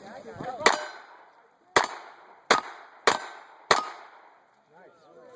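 Five quick gunshots over about three seconds, with steel target plates ringing as they are hit.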